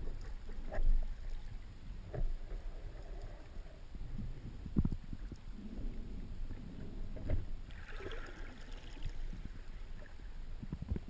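Sea water washing around the camera during a freedive, with scattered muffled knocks and a brief bubbly hiss about eight seconds in.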